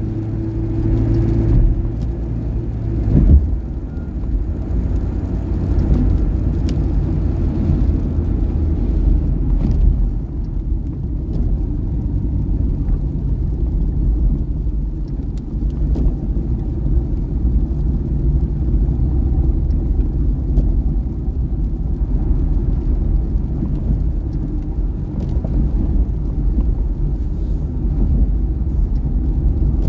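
Car interior noise while driving on a wet road: a steady low engine and tyre rumble, with a held hum for the first few seconds that ends in one loud thump about three seconds in.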